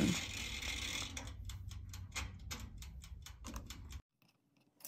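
Benchtop toaster oven's clockwork timer ticking evenly, about three to four ticks a second, as the timer runs after being set; the ticking cuts off suddenly about four seconds in.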